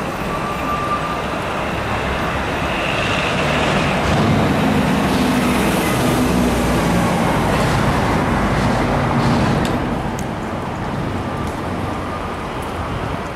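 City street traffic noise: a steady rush of cars and trucks, with a vehicle passing close and loudest from about four to nine seconds in.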